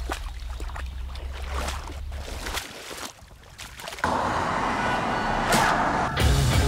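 Water splashing as legs in rubber waders wade through shallow water. The splashing rises suddenly and loudly about four seconds in, as a boat is pushed off through the shallows.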